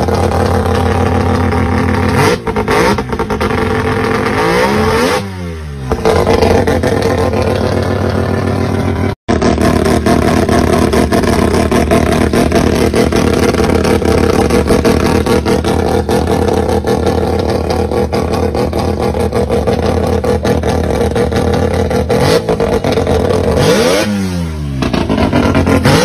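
Mazda RX-3 rotary (Wankel) engine running at a fast, uneven idle, breathing through open velocity-stack intakes. Its pitch sags and climbs back about five seconds in and again near the end.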